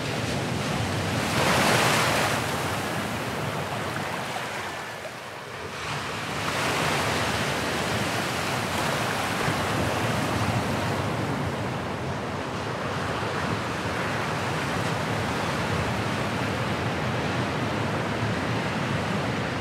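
Ocean surf washing in a continuous hiss, swelling as waves break about two seconds in and again about six seconds in.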